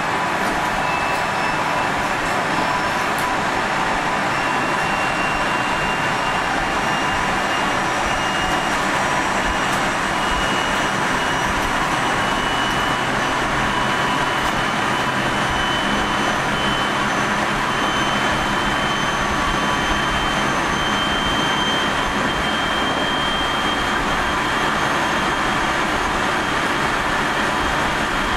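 373 series electric multiple unit car KuMoHa 373-11 with MT68 traction motors running along the line: a steady rumble of wheels on rail with thin high whining tones that slowly rise in pitch. This car (set F11) is known for an unusually strong abnormal running noise.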